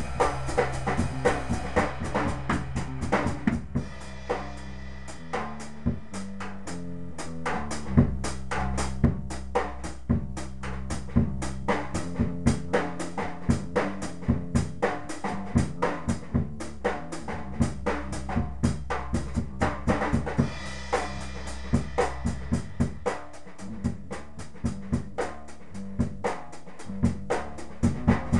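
Drum kit played live in a jam, with bass drum, snare and cymbals keeping a steady groove and low bass notes changing pitch underneath.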